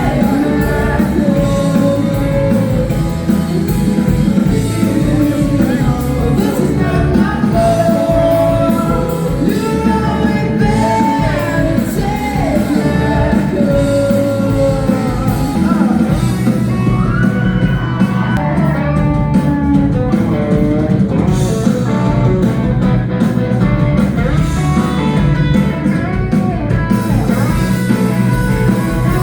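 Rock band playing live, with a singer's voice over electric guitar and the band.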